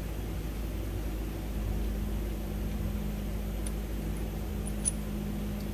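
Steady low mechanical hum, with a light metallic click near the end as the small bolt of a fuel-injector sleeve-ring installer tool is turned out by hand.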